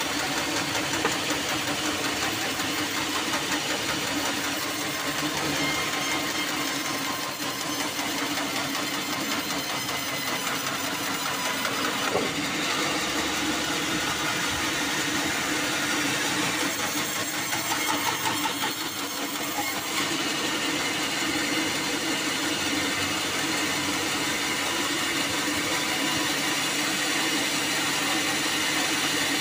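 Band sawmill running steadily, its blade sawing a thick slab off a black acacia log.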